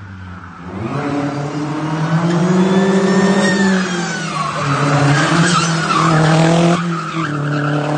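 Mercedes CLK 230 Kompressor's supercharged four-cylinder engine revving hard as the car drifts, with tyres squealing. The revs climb about a second in, then dip briefly in the middle and again near the end.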